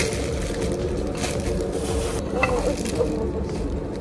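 Plastic bag crinkling as frozen sliced meat is pulled out and the slices are torn apart by hand, over a steady background noise.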